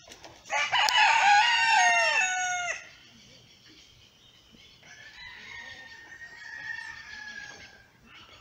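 A rooster crows once, loud, for a little over two seconds, each phrase falling away at the end. A fainter, longer drawn-out call follows a couple of seconds later.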